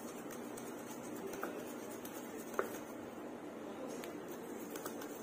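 Small wire whisk stirring pancake batter in a glass bowl: a soft, steady wet swishing, with one sharper light tick about two and a half seconds in.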